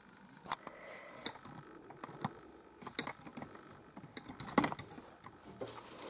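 Faint, scattered light clicks and taps of handling at a painting desk, with one sharper tap a little past halfway.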